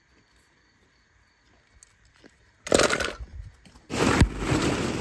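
Plastic ball-pit balls clattering and rustling as a hand digs through them. It is near silent at first, a short burst comes a little past halfway, and continuous clatter starts about four seconds in.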